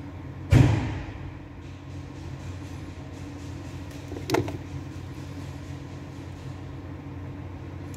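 Handling noise from fitting insulated spade connectors onto speaker wire: a loud knock about half a second in that rings briefly, and a sharper click a little past four seconds, over a steady low hum.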